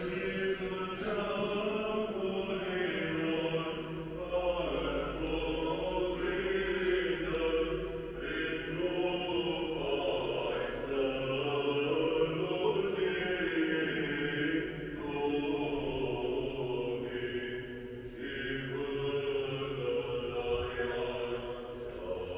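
Choir singing a slow Orthodox liturgical chant: sustained voices in long phrases that shift pitch slowly.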